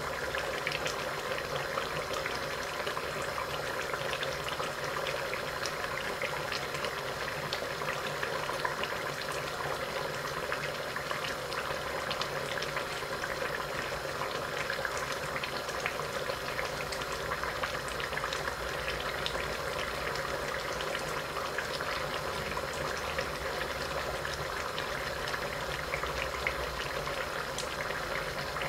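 Duck karahi cooking under the lid of an iron karahi on a gas burner, bubbling and crackling steadily.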